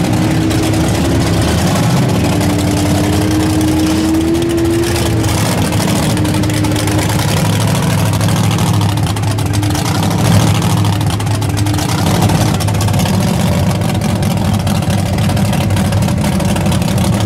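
Off-road truck engine running steadily at a low pitch, with a thin whine that wavers up and down in pitch over the first several seconds.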